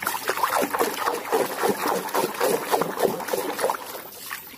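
Water splashing and sloshing in a plastic basin as a hand swishes and scrubs a muddy plastic elephant toy under the water. It is a busy, irregular splashing that eases off near the end.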